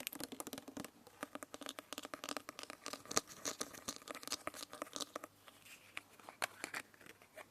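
Close-miked crunching and crackling of a person biting and chewing a crisp edible spoon: dense rapid crackles that thin out to a few sharp clicks about five seconds in.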